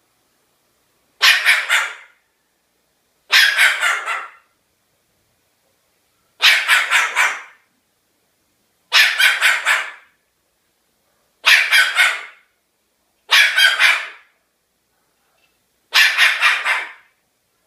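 Cockatoo imitating a dog's bark: seven short bursts of three or four quick barks each, a couple of seconds apart.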